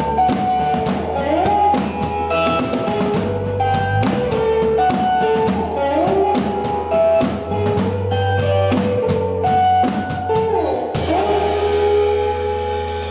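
Live indie rock band playing: electric guitars with sliding lines over electric bass and a drum kit keeping a steady beat. Near the end the cymbals crash and ring.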